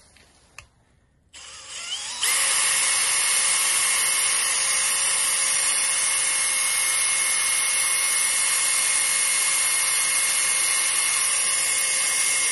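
Makita cordless drill with a small bit drilling a hole into a motorcycle brake pedal. It spins up about a second and a half in, then runs steadily at full speed with a constant whine.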